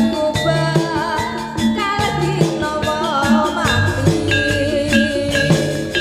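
Live jaranan accompaniment music played loud through a sound system: a Javanese gamelan-style ensemble with drums keeping a steady pulse under a wavering melodic line, and a deeper bass note coming in about four seconds in.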